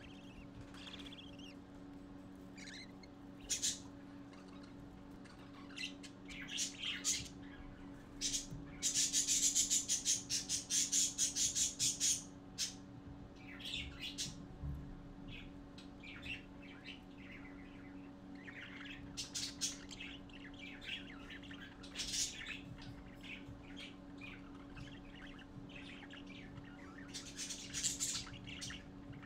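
Budgerigar chicks chirping and squawking in short high calls, with a fast run of rapid chirps lasting about three seconds around the middle, over a steady low hum.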